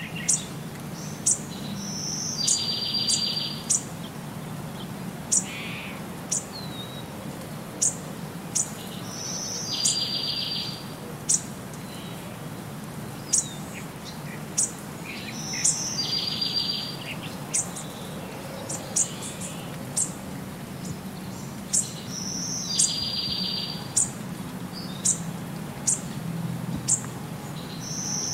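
Birds singing: frequent short high chirps, and about every six and a half seconds the same song phrase ending in a buzzy trill, over a low steady hum.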